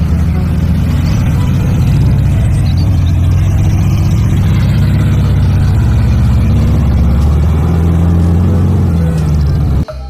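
Humvee's engine running under load as it drives through a deep mud hole, a steady low drone that cuts off suddenly near the end.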